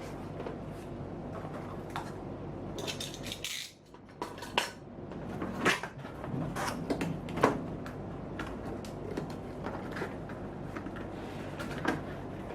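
Unboxing handling noise: a laptop and its packaging being handled, with scattered clicks and light knocks and a short burst of rustling about three seconds in.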